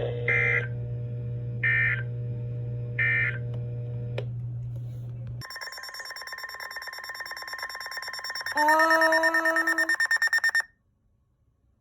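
Weather radio's data bursts: three short buzzy blips about 1.4 s apart, the end-of-message code after a marine warning, over a low hum. Then the radio's alert tone sounds steadily, turns into rapid pulsing beeps, and cuts off suddenly.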